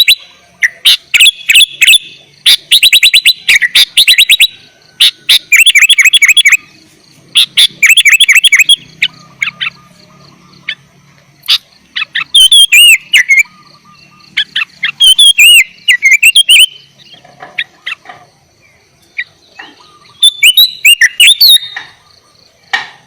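Sooty-headed bulbul (kutilang) singing loudly: bursts of rapid repeated chattering notes in the first half, then separate looping whistled phrases with pauses between them.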